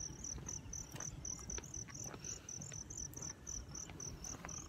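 An insect chirping steadily, a high pulse repeated about four times a second, typical of a field cricket.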